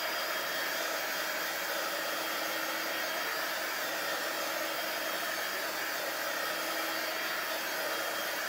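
Heat gun running steadily, blowing hot air over wet acrylic paint on a canvas: an even rush of air with a faint low hum.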